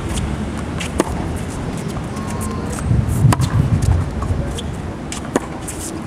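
Tennis balls struck with rackets in a rally on a hard court: three sharp pops about two seconds apart, with fainter ticks between them, over a steady low rumble.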